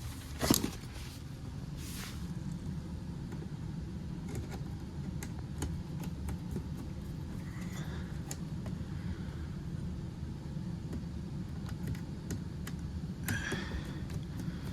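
Steady low mechanical hum from running equipment, with scattered light clicks of hand tools and a sharper click about half a second in as a screw is being undone.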